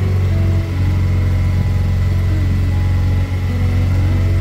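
Motorboat engine running steadily under way, a deep even drone with no change in speed.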